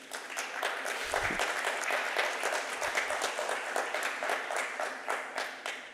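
Audience applauding, the clapping starting at once and dying away near the end.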